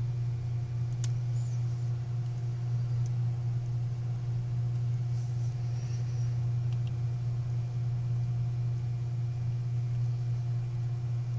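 Steady low hum throughout, with a few faint, small clicks as metal tweezers pick at the phone's rear camera lens cover.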